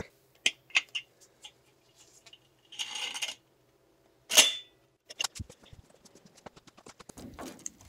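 Harbor Freight Badland 2500 winch's clutch being re-engaged: a few clicks as the clutch knob is turned, a short rattle about three seconds in, then a sharp metallic clunk with a brief ring about four and a half seconds in as the clutch snaps back in. Light scattered clicks and taps follow.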